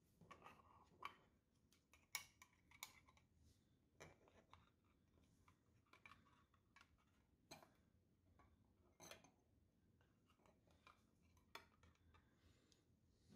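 Near silence with faint, scattered clicks and taps from a metal canning-jar lid and a small solar cell being handled and turned over on a wooden table.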